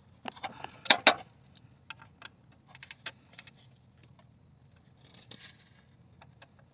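Metal clicks and scrapes of a 3/8-inch ratchet on an extension being worked into the square hole of a drive-belt tensioner. The loudest pair of clicks comes about a second in, with scattered lighter clicks after and a short rattle around five seconds in.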